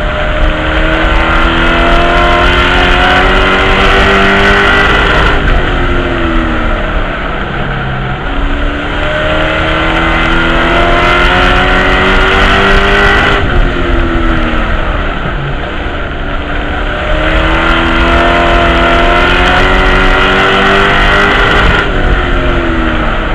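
Race truck's engine heard from inside the cockpit at racing speed, climbing in pitch down each straight and dropping sharply as the driver lifts for the turns, three times over. A steady rush of wind and tyre noise runs underneath.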